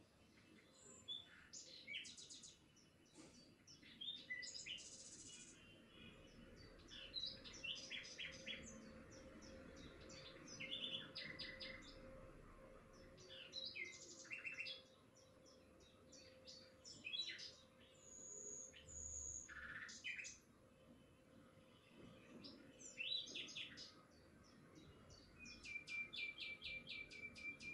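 Small songbirds chirping and singing in quick trills, short descending notes and a few held whistles, one fast trill near the end.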